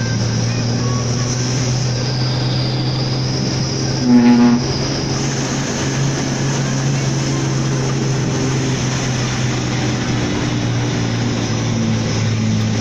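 Hino Ranger SG260Ti truck's diesel engine running steadily under a heavy load, heard from inside the cab. About four seconds in, the horn gives one short blast.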